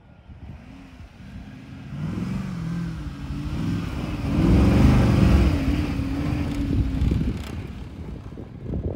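Mercedes-AMG ML63's 6.2-litre M156 V8 revving up and down under hard acceleration, loudest about halfway through and fading near the end as the SUV pulls away.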